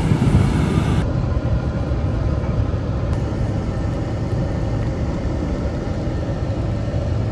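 Steady low engine and road rumble heard from inside a moving bus.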